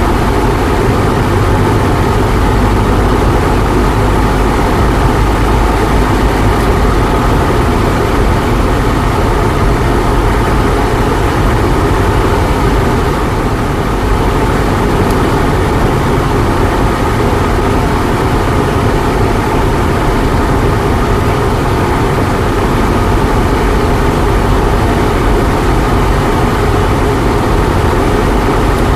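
A Cessna 172's piston engine and propeller heard from inside the cabin in flight: a loud, steady drone that does not change.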